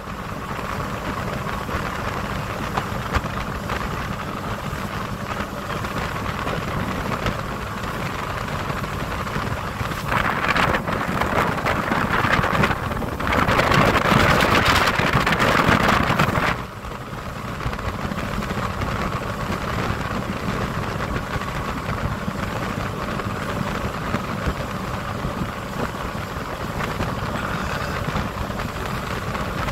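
Motorboat under way: the engine runs with a steady hum under wind on the microphone and water rushing past the hull. From about ten seconds in, a louder rush of wind and water builds for several seconds, then cuts off sharply and drops back to the steady run.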